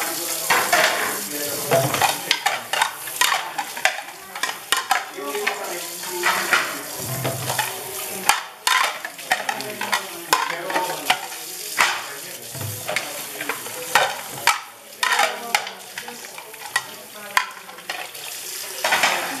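Tap water running into a stainless steel sink while plates are rinsed by hand, with splashing and frequent short clinks and knocks of plates against each other and the sink.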